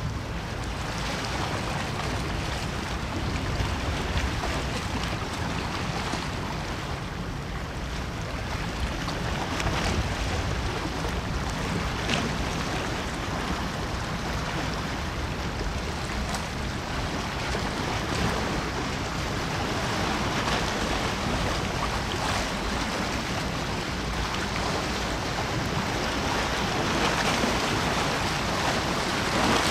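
Steady hiss of wind and water: a broad, even rush with no distinct events and no engine tone.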